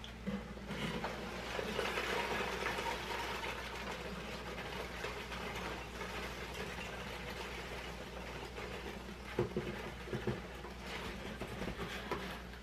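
Styrofoam packing peanuts pouring and tumbling out of a tipped cardboard shipping box into another box: a continuous rustling patter, with a few knocks from the box about three quarters of the way through.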